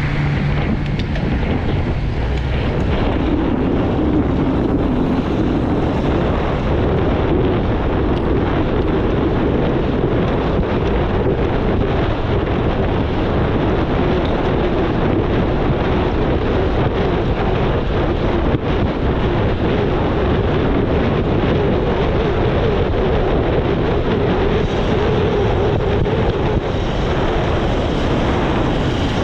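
Loud, steady wind rushing over the camera microphone as a road bike is ridden at speed, a constant roar with no breaks.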